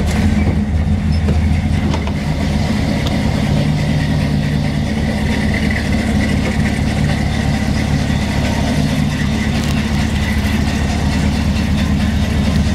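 The engine of a white square-body dually pickup running steadily at low speed as the truck is driven slowly into position.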